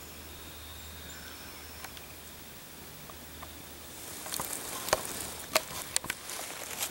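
A faint steady hiss, then from about four seconds in close rustling with several sharp, loud cracks.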